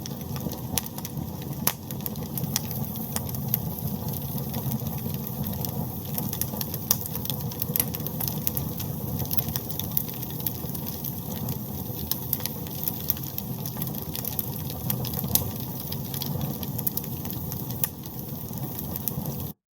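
Wood fire burning in a fireplace: a steady low rumble of flames with frequent irregular crackles and pops. It cuts off suddenly near the end.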